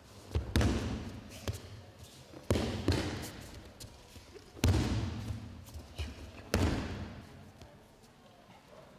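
Mat breakfalls in aikido: bodies and slapping arms hitting the mats in sharp thuds, about six of them over the first seven seconds, each with a short echo in the hall.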